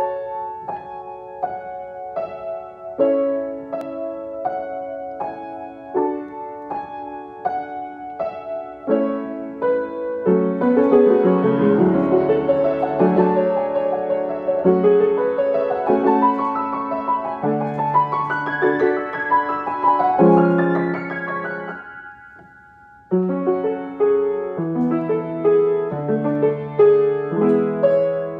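Solo grand piano playing. It opens with sparse, evenly spaced chords, thickens into a fuller, louder passage about ten seconds in, fades into a brief pause a little after twenty seconds, then picks up again.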